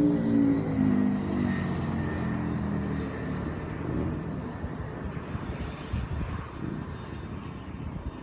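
Naza Blade V-twin sport motorcycle moving away just after a high-speed flyby, its engine note falling in pitch and fading over the first few seconds into background noise.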